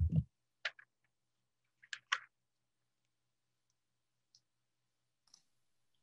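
A few short, sharp clicks of a computer mouse: one under a second in, a close pair around two seconds, and two fainter ones later.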